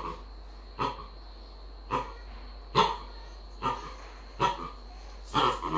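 A macaque giving a series of short, sharp calls, about one a second.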